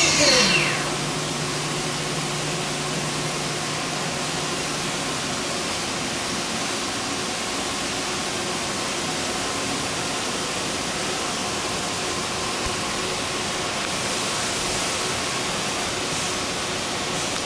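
Inline direct-drive spindle of a 2004 Haas VF-2SS CNC mill spinning down from 12,000 RPM: a falling whine that dies away within the first second. After it, a steady, even noisy hum remains.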